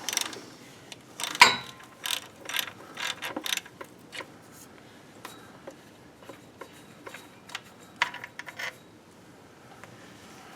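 Socket ratchet clicking in short, irregular runs as it works a starter mounting bolt, with a sharper metallic knock about a second and a half in.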